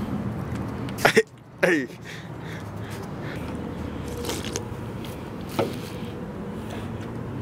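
A person makes two short, loud throat sounds about a second in, the second falling in pitch, over a steady low hum.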